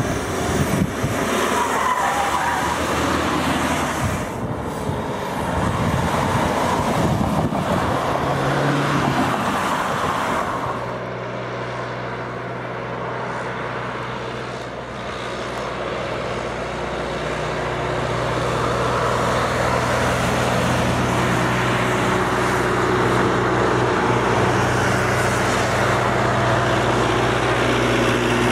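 Cars driving on a road, with engine and tyre noise as camouflaged Volkswagen Passat test cars go by. From about ten seconds in the sound turns into a steadier, even engine hum.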